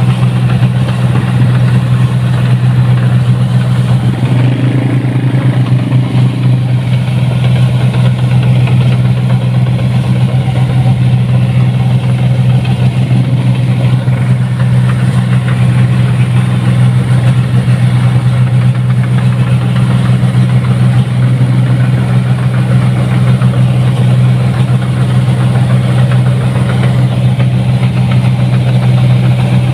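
1550 rice combine harvester's engine running steadily as the machine drives along the road, a loud, even low drone.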